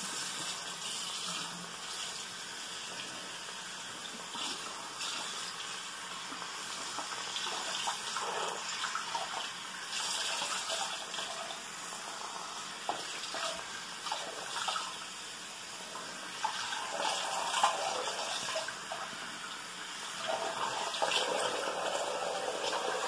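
Tap water running steadily and splashing as hair is soaked under it, with small swells and dips as the head moves in the stream.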